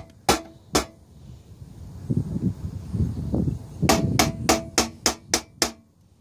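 Sharp metallic knocks on a steel filing cabinet drawer, each with a short ring: two near the start, then a quick run of about seven at roughly three a second. It is the sound of banging at a drawer that is stuck and won't open.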